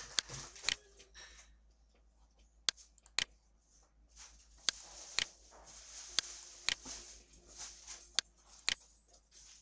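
Computer mouse button clicking, sharp clicks mostly in pairs about half a second apart, over a steady faint hiss.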